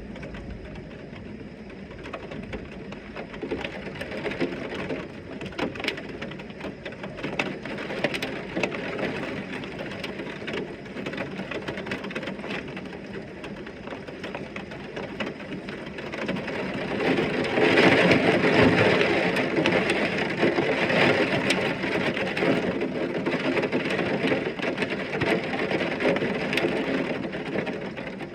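Heavy rain pouring down, a steady hiss full of spattering drops, which swells noticeably louder a little over halfway through and stays heavy.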